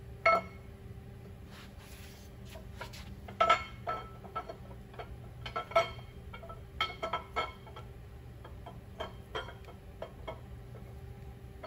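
Sharp metal clinks and knocks with a brief ringing note, irregular and a dozen or so in all, as a steel camshaft is worked out of the cam bearings of a 528 cubic inch Gen 2 Hemi block. Under them runs a steady low hum.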